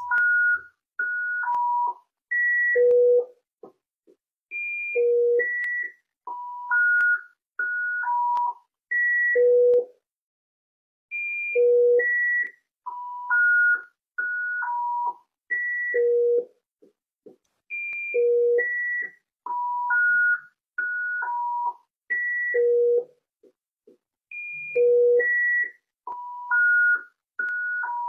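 A frequency-healing tone track, the opening frequency played for pineal gland activation: a string of pure electronic beep tones, each held for about half a second to a second with short gaps between. The tones jump between low and high pitches in a fixed phrase that repeats every six or seven seconds.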